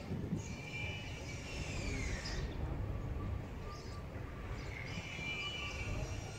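Steady low outdoor rumble, with thin high chirping calls and a whistle falling in pitch about two seconds in.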